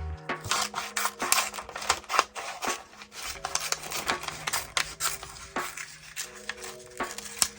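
Paper and craft materials being handled in art-journal work: scratchy rubbing and scraping broken by many irregular light taps and clicks, over soft background music.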